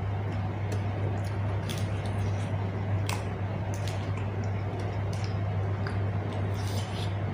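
A person eating close to the microphone: wet chewing and lip smacks heard as irregular short clicks, over a steady low hum.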